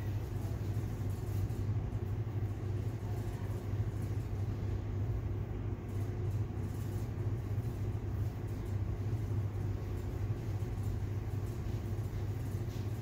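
A steady low hum, even throughout.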